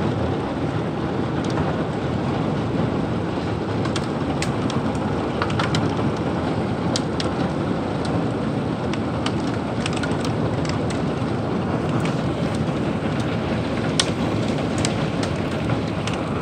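Heavy rain and dime-size hail hitting the house during a severe thunderstorm. It is a steady dense noise, with many scattered sharp ticks from individual hailstones striking.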